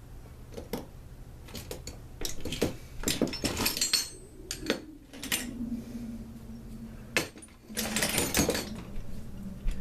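Small metal engine parts and hand tools clinking and clattering on a workbench during reassembly, in irregular bursts over a steady low hum.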